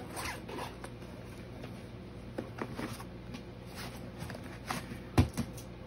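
Hands working a zippered inside pocket of a soft bow case: fabric rustling and scattered small clicks, with one sharper knock about five seconds in.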